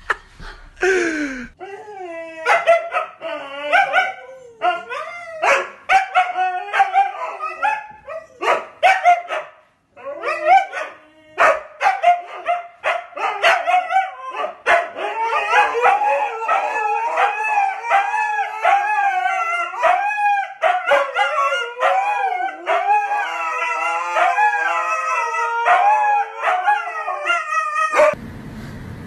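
A dog howling in long wavering cries, mixed with short barks and yips.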